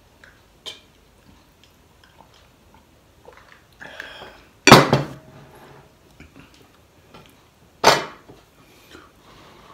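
Heavy glass beer mug and tableware knocking on a wooden dining table: two sharp clunks about three seconds apart, the first ringing briefly.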